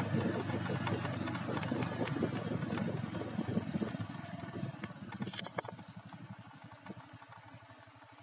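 Motorcycle engine running with a low pulsing rumble that fades away over several seconds. A short hiss comes about five seconds in.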